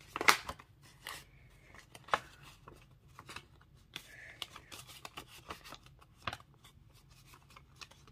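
Paper banknotes rustling and a clear plastic cash-envelope sleeve crinkling as bills are handled and slid into it: a string of short, crisp rustles and taps, the sharpest right at the start.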